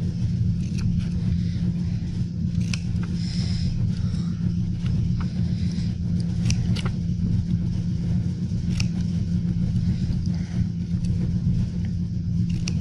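Scissors snipping paper, a scattering of short sharp cuts, over a steady low hum.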